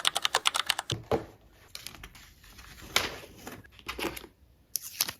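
Rapid keyboard-typing clicks for about the first second, then scattered crinkling and rustling, as of packaging being handled.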